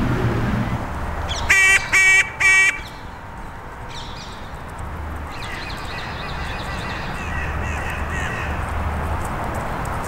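Carrion crow cawing three times in quick succession, about a second and a half in, each caw short and harsh.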